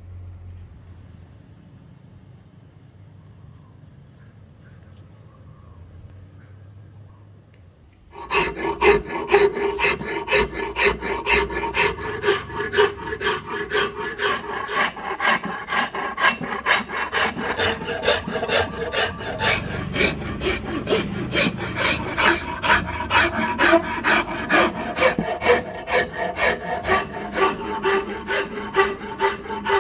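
A round rasp drawn back and forth in quick, even strokes along a Siamese rosewood axe handle clamped in a vise, shaping the wood. The rasping starts suddenly about eight seconds in, after a quiet stretch with a few faint high chirps.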